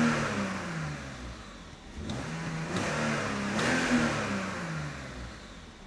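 BMW M54B30 3.0-litre straight-six, warmed up and in Park with its stock air box, revved in neutral: it falls back from a rev at the start, then climbs again about two seconds in to around 4,500 rpm and drops back. Heard from inside the cabin.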